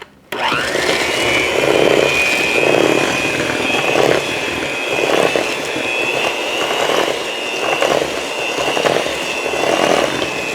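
Electric mixer starting up and running steadily, beating cookie batter of butter, sugar, eggs and molasses. A high motor whine settles just after start-up, with a duller swish from the beaters in the batter about once a second.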